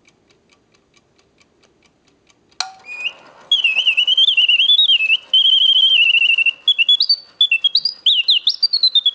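Vintage West German singing bird automaton alarm clock: the clockwork ticks steadily, and about two and a half seconds in a click is heard as the alarm sets off. The mechanical bird then starts singing, a loud bellows-driven whistle warbling with fast trills and rising chirps.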